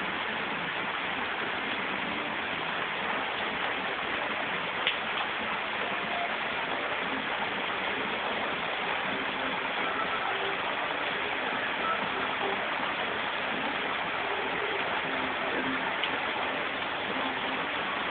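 Steady heavy rain pouring down onto stone paving and steps.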